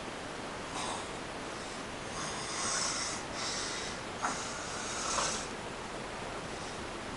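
Someone asleep snoring: four rough, noisy breaths over a steady hiss, with a short click about four seconds in.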